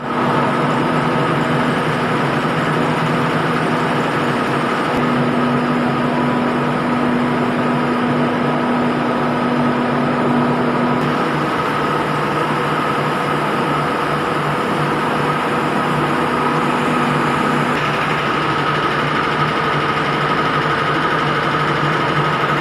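Industrial ammonia refrigeration plant machinery running steadily: a loud, even hum with a constant high whine, and one low tone dropping out about 18 seconds in.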